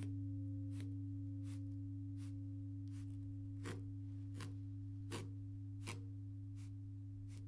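A low, steady ringing tone slowly dying away, with soft clicks about every three-quarters of a second.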